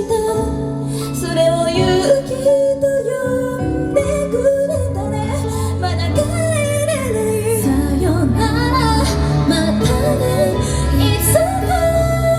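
J-pop idol song performed live: female vocals over full pop band music with a steady bass line.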